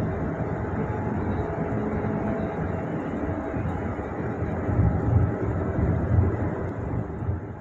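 Yutong electric bus under way, heard inside the cabin: a steady rumble of road and running noise, swelling into louder low rumbles about five seconds in.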